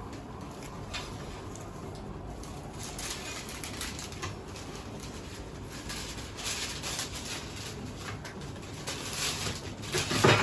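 Steady low background noise of a small restaurant with faint scattered clicks and rustles, and a louder knock near the end.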